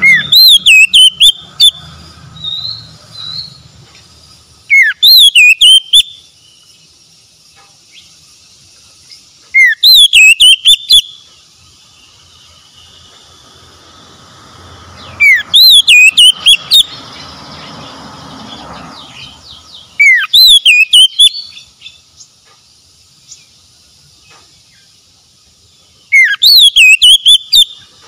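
Oriental magpie-robin singing the same loud phrase six times, about every five seconds. Each phrase is a quick rising sweep that runs into a warbling whistle lasting about a second and a half.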